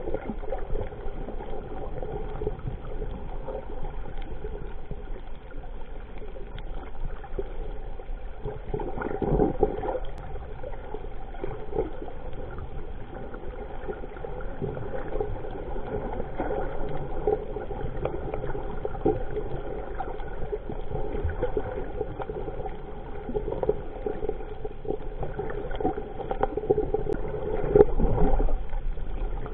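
Muffled underwater sound of water moving and gurgling around a submerged camera, over a steady hum, with louder swells twice, about nine seconds in and near the end.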